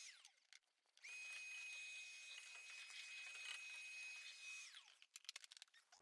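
Shop vacuum motor running with a steady high whine. It is switched off and winds down right at the start, starts up again about a second in, and is switched off and winds down again near the end. A few light clicks follow.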